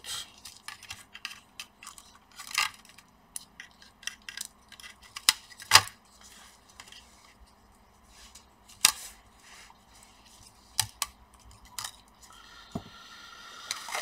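Scattered small clicks and taps of tweezers and gloved fingers on the plastic and metal parts inside an opened laptop as the battery connector and internal cables are disconnected. The sharpest clicks come about six and nine seconds in.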